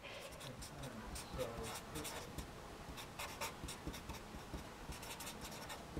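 Felt-tip marker writing on paper: a faint, steady run of short scratchy pen strokes.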